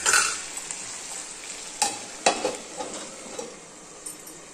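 Raw banana pieces sizzling in an iron kadai, cooking in a sprinkle of water, with a few sharp clinks of metal on the pan about two seconds in.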